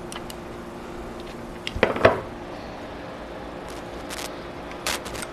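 Hands handling the cast-iron table and gib of a Burke #4 horizontal milling machine: a short cluster of metal clicks and knocks about two seconds in, and a few lighter taps near the end, over a faint steady hum.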